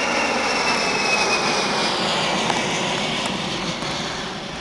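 Boeing 747-200's four turbofan engines at takeoff thrust as it climbs away: a steady jet roar carrying a high whine that slowly falls in pitch, the whole sound easing off from about three and a half seconds in.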